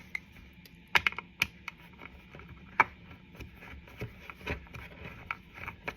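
Wooden stand parts knocking and clicking irregularly as a shelf is wiggled into its slot and lined up, with a few sharper knocks about a second in and near three seconds.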